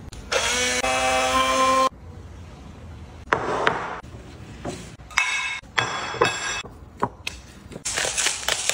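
Small electric food chopper's motor whirring for about a second and a half with a steady whine, then cutting off. Afterwards come light knocks and ringing clinks of a ceramic bowl, and a pepper grinder grinding near the end.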